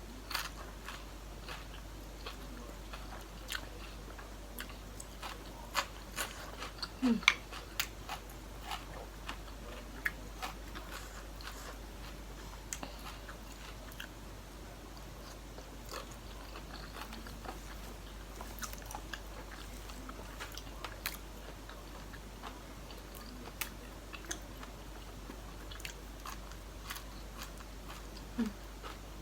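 A person chewing and biting food close to the microphone: a mouthful of seafood tam, with scattered crunches and wet mouth clicks throughout.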